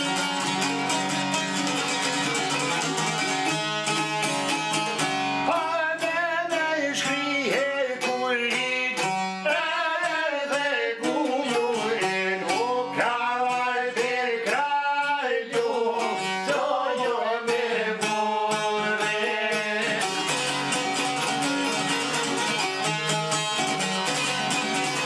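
Two long-necked plucked lutes played together, with men's voices singing a song from about four seconds in until about twenty seconds, after which the lutes carry on alone.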